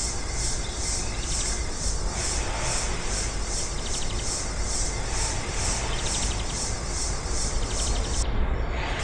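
Flat hand file rasping in strokes on a cast aluminium sabre guard clamped in a vise, over a steady hiss with a regular high pulsing about three times a second.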